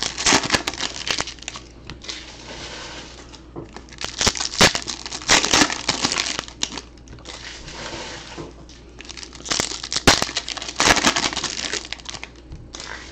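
Foil wrappers of 2018 Topps Chrome trading card packs being torn open and crumpled: loud crinkling with sharp crackles, coming in several spells with quieter gaps between.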